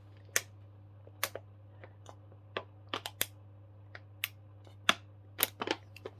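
A string of sharp, irregularly spaced clicks and taps, a few each second, over a steady low hum.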